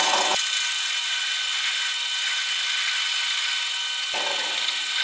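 Milling machine spindle running with a steady whine as a pilot drill bit cuts down into a cast iron part, drilling the tap hole for a HeliCoil thread repair. The sound grows fuller about four seconds in.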